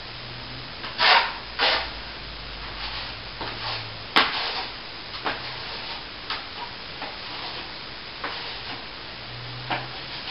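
A plastering tool scraping in short, irregular strokes, three of them louder, about a second, a second and a half, and four seconds in.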